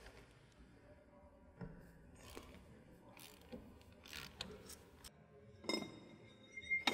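Ratchet wrench turning on the wrenching flats of a jet engine's main fuel filter bowl to loosen it: scattered faint metal clicks, then two sharper metallic clinks near the end, the last ringing briefly.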